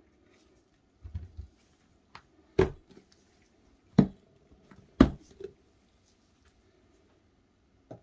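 Plastic clip-lock food container being opened: its lid latches snap open in three loud sharp clicks about a second apart, with lighter clicks and a few soft knocks of handling around them.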